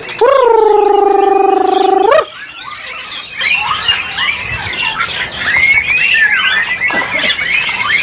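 A loud, drawn-out squawk of about two seconds that ends in an upward glide, followed by many caged birds chirping and whistling together.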